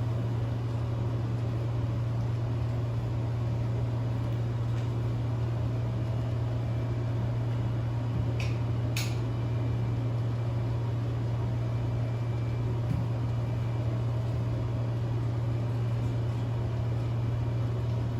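A steady low mechanical hum with an even hiss over it, and two short sharp clicks about half a second apart a little after halfway.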